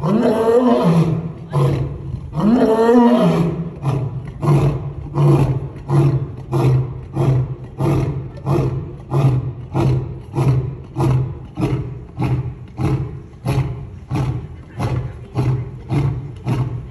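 Male African lion roaring: two long, full roars, then a long run of short grunting roars at about one and a half a second that slowly weaken, the usual closing of a lion's roar bout.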